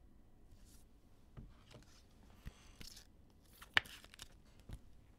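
Faint rustling and a few light ticks as trading cards and clear plastic card sleeves are handled, with one sharp click almost four seconds in.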